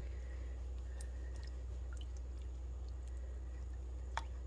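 A small spoon stirring yeast and sugar into warm water in a glass mixing bowl: faint wet swishing with a few light clicks against the glass, the clearest about a second in and near the end, over a steady low hum.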